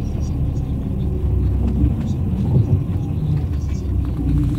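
Bus engine rumbling low and steady, heard from inside the passenger cabin.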